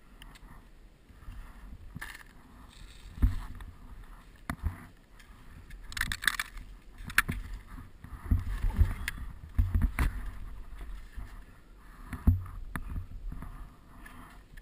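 Skis sliding and scraping over snow, with irregular knocks and bumps and some wind on a body-worn camera's microphone.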